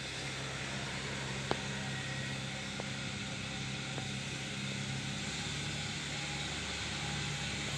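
Engine running steadily with a low hum over a hiss of noise, with a faint click about one and a half seconds in.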